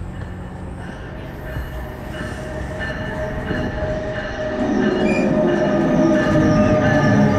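Commuter train pulling into a station, with a steady high squeal from its wheels as it slows. Its rumble grows much louder about two-thirds of the way through as it draws level.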